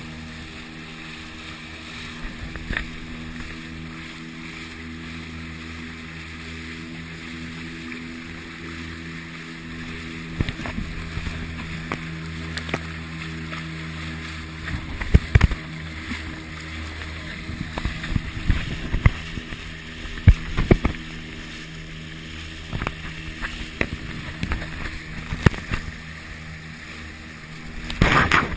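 Small petrol outboard motor on a fishing kayak running steadily at speed, its hum holding an even pitch. Over it comes water rushing and spray slapping against the hull and camera; the slaps grow more frequent from about halfway, with a loud burst of splashing near the end.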